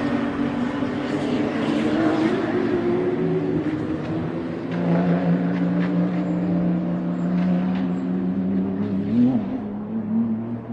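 A car running, with steady low engine tones that drift slightly in pitch over road noise, a brief pitch glide about nine seconds in, and a fade near the end.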